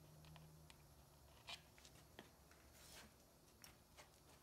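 Near silence: a faint steady low hum with a few scattered light ticks.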